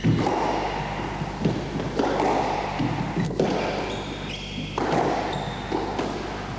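A squash rally: the ball struck by rackets and hitting the court walls in sharp thumps about once a second, with short high squeaks of court shoes on the wooden floor between hits. A steady low hum runs underneath.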